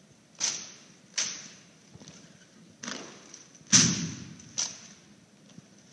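A Marine silent drill team's rifle drill: about five sharp, irregularly spaced slaps and knocks as the rifles are handled in unison, the loudest a heavier thud about two-thirds of the way through.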